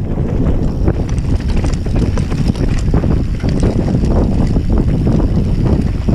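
Banshee Spitfire mountain bike rattling down a rocky dirt trail at speed: a steady rumble of tyres and wind on the microphone, with a constant clatter of chain and frame knocks over small stones and bumps.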